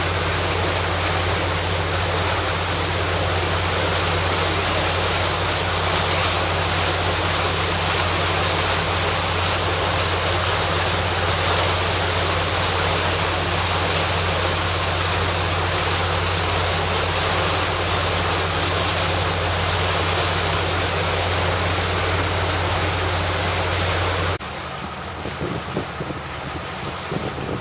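Motor boat running underway: a steady low engine drone under the rush of water and wind on the microphone. About twenty-four seconds in it cuts suddenly to quieter, uneven wind buffeting the microphone.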